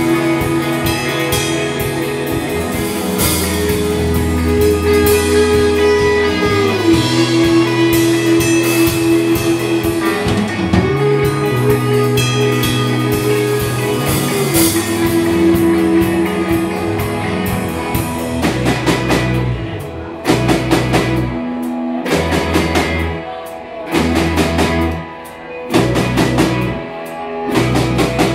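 Live rock band playing loudly: held notes that bend up and down over bass and drums, then, about two-thirds of the way through, a run of short stop-start hits with brief gaps between them.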